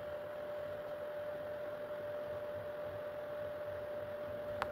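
Anycubic Kobra 3 Combo 3D printer restarting after a firmware update: a steady hum holding one unchanging tone over a hiss, with a single sharp click near the end.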